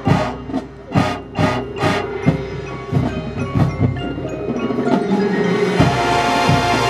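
Marching band music: a run of sharp percussion hits about twice a second over ringing mallet percussion, with a sustained chord swelling in about six seconds in.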